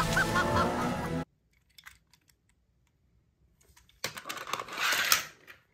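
Music cuts off abruptly about a second in; after a quiet stretch, toy cars clatter and rattle as they are rummaged through by hand.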